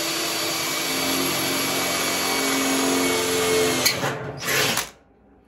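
Cordless drill boring a hole through the sheet-steel cover of an electrical panel, running steadily under load for about four seconds. Near the end there is a sharp click and a short last burst, then the drill stops with the hole done.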